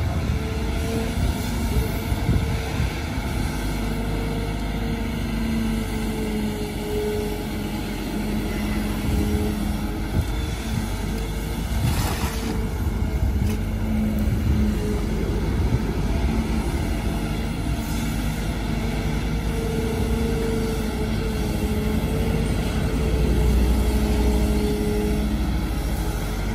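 Kobelco SK200 excavator's diesel engine running steadily while the boom and bucket dig and lift wet mud, its note swelling and easing as the hydraulics take load. A single sharp clank about halfway through.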